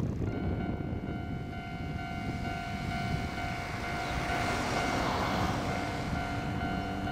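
Kominato Railway KiHa 200 diesel railcar rumbling slowly into a station, with a steady high-pitched squeal from its brakes. A hiss swells about four to five seconds in.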